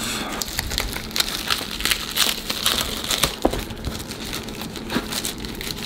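Thin plastic protective sleeve crinkling and rustling as hands peel and pull it open, with many small crackles.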